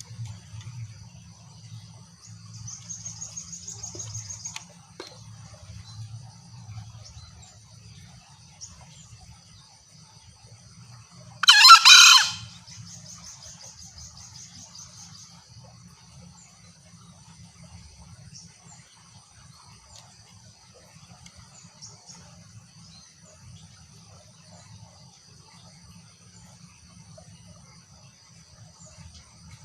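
A green junglefowl gives a single loud, hoarse call lasting about a second, near the middle. Behind it runs a steady high insect drone, with buzzing trills before and just after the call.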